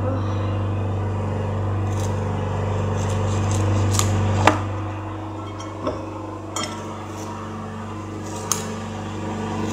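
Kitchen scissors snipping through crisp toasted bread, a handful of short sharp clicks, over a steady low electrical hum that eases off after the loudest click, about halfway through.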